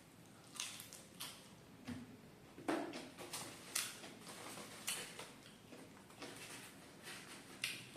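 Close-miked eating sounds of crispy fried duck: an irregular series of sharp crunches and wet mouth clicks as it is chewed.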